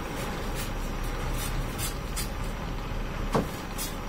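Newspaper being handled and folded into paper bags, with short crinkles and rustles and a sharp tap about three seconds in, over a steady background rumble.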